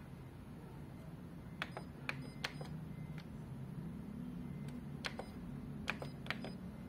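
Fuji Xerox DocuCentre-V 2060 copier keypad being pressed: a handful of short sharp clicks in two quick runs, with a pause between, as a service-mode chain-link code is keyed in. A low steady hum from the copier runs underneath.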